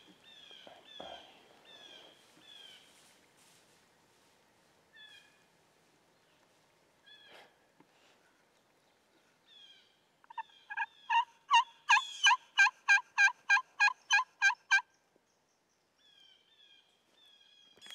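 A long run of loud turkey yelps, about four a second for some four seconds, starting about ten seconds in. Faint high, falling chirps of a small songbird repeat in the first few seconds and again near the end.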